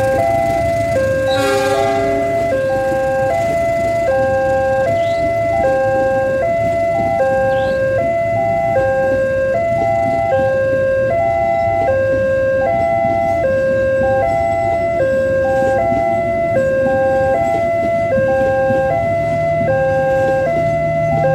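Level-crossing warning alarm sounding a steady two-tone chime that switches pitch about every three-quarters of a second. Under it runs the rumble of passenger coaches passing over the crossing.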